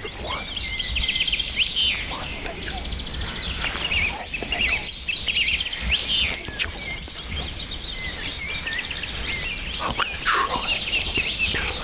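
Several songbirds singing at once, a mix of fast trills and short repeated high whistled notes, over a low steady rumble.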